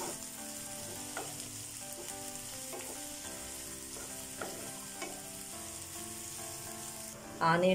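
Chopped onions and green chillies frying in oil in a nonstick pan, sizzling steadily while a wooden spatula stirs them, with a few light scrapes and taps of the spatula against the pan.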